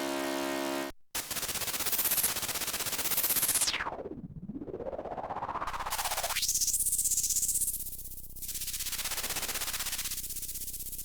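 Arturia MicroFreak synthesizer playing a noise-based preset. Loud hissing noise whose filter sweeps down and back up about four seconds in, then swells of filtered noise with a fast flutter. It follows a held chord from the previous preset that cuts off about a second in.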